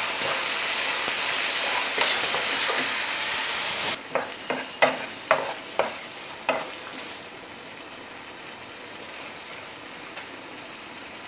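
Ginger-garlic paste and onions frying in groundnut oil in a nonstick kadai, sizzling while a wooden spatula stirs them: the raw paste being fried off until the oil separates. About four seconds in the sizzle drops, a run of about six sharp knocks follows, and then a quieter steady sizzle.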